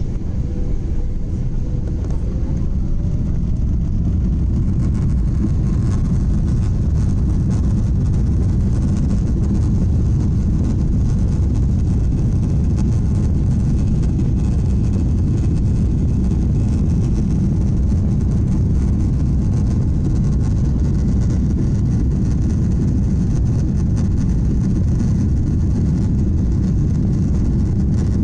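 Steady low roar of a Boeing 777-300ER's jet engines and airflow heard inside the passenger cabin. It builds over the first few seconds, with a faint rising whine, then holds loud and even.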